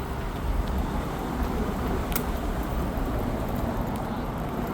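Steady low rumble of street traffic, with a single sharp click about two seconds in.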